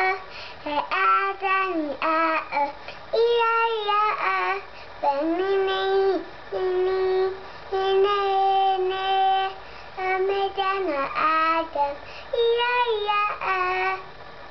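A young child singing alone: short sung phrases and several long held notes, with brief pauses between phrases.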